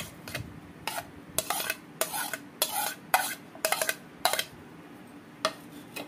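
Steel spoon scraping and clinking against a ceramic plate as chopped vegetables are pushed off it into a bowl: a run of short scrapes, with one last scrape about a second after the rest.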